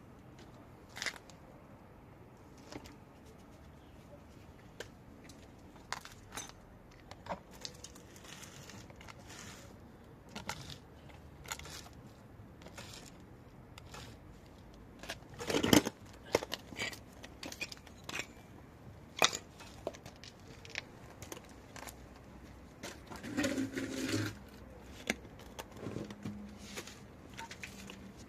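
Scattered clicks and metallic knocks of tools and parts being handled during brake work, with one louder knock about halfway through and a short cluster of clatter near the end.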